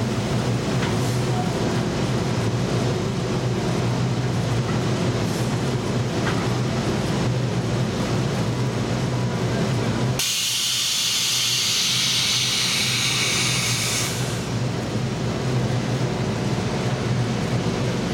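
Drilling rig floor machinery running with a steady low drone and hum. About ten seconds in, a loud hiss lasts about four seconds while the drone drops away, then the drone returns.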